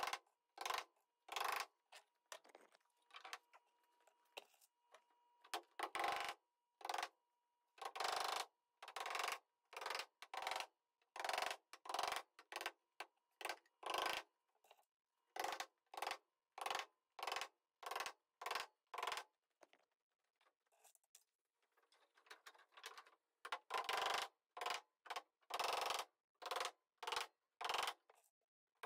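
Claw hammer driving small nails through thin lauan plywood strips into the wooden roof framing: a long series of sharp strikes, about one or two a second, with a brief pause past the middle.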